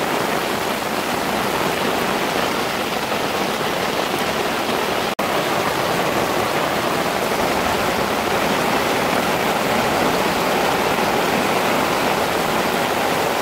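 Torrential rain pouring onto a reservoir's water surface, a dense, even hiss of heavy rain. The sound cuts out for an instant about five seconds in.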